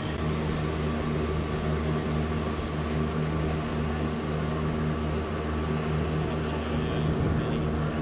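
A steady, low engine-like drone holding one pitch throughout.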